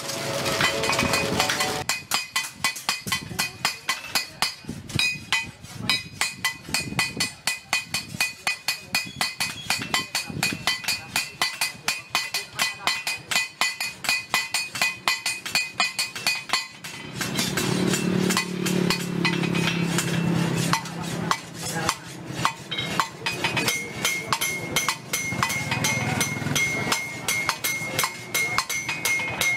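Rapid hammer blows on steel at a blacksmith's anvil, about four a second, each one ringing. The blows thin out for a few seconds past the middle, then pick up again, with a steady high ring near the end.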